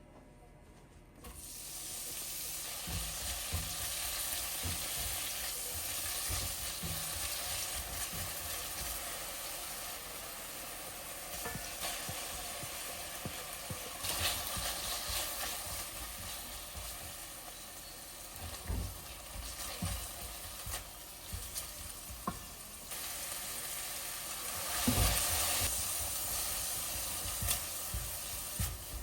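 Food sizzling as it fries in a pan, starting about a second in, with the repeated knocks of a utensil stirring against the pan. The sizzle swells briefly about four-fifths of the way through.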